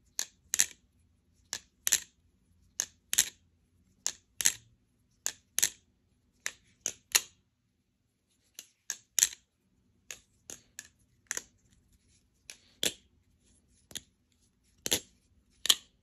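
Squid Industries Nautilus balisong being flipped: its 7075 aluminium handles with G10 scales, tang pins and stainless steel blade knock together in sharp clicks, mostly in pairs or threes about a third of a second apart, a group every second or so. It is a calming clack rather than a high-pitched ping.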